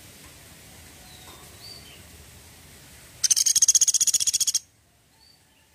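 Pelatuk sampit, a small woodpecker, giving its 'tembakan' call: a fast, high-pitched rattling trill of evenly spaced notes about a second and a half long, starting a few seconds in and stopping abruptly. A couple of faint short chirps come before it.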